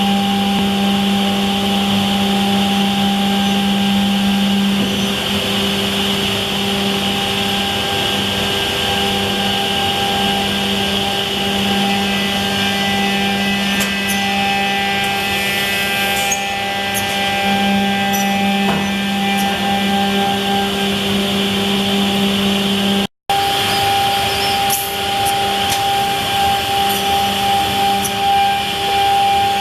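Cehisa 302 pass-through edge banding machine running: a steady motor hum over a high hiss, with light clicks and ticks in the second half. The sound cuts out for a moment about 23 seconds in.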